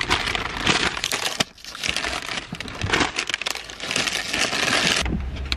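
Plastic bags and packaging rustling and crinkling as groceries are handled, in irregular bursts with a short lull about a second and a half in.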